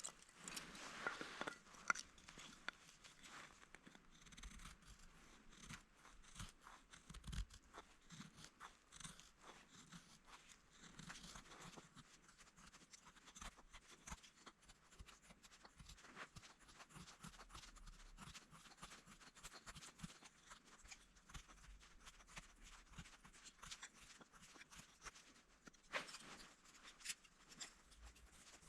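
Very faint, scattered crackles and small clicks over a near-silent background, with one slightly louder click near the end.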